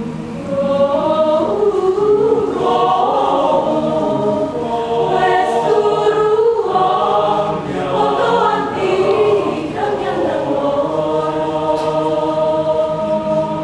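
University choir singing in several parts, low voices holding steady notes underneath while the upper voices move.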